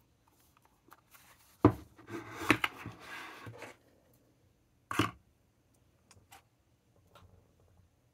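Nakabayashi craft-paper pen stand being handled and opened out on a table: a knock, about two seconds of paperboard rustling and scraping, a second knock about five seconds in, then a few faint taps.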